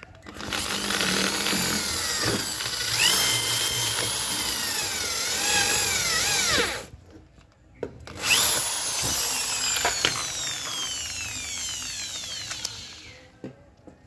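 Electric drill boring a bolt hole through a washing-machine gearbox pulley, in two runs of about six and five seconds with a short pause between. The motor's whine wavers in pitch as the bit bites and drops away at the end of each run.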